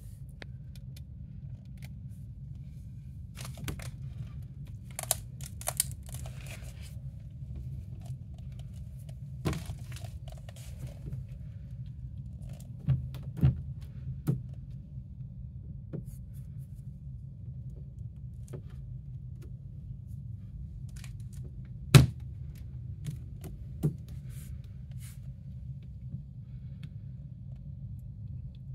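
A cat batting at a spring-mounted pompom toy on a suction-cup base on a hard glossy surface: scattered taps, scrapes and rustles, the loudest a sharp knock about two-thirds of the way through, over a steady low hum.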